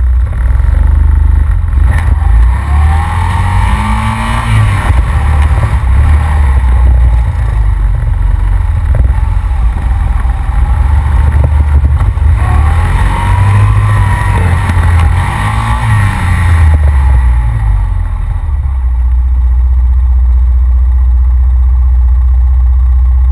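Honda Rancher ATV engine running loud on a trail ride, revving up and easing off twice, a few seconds in and again past the middle, then settling to a steady run.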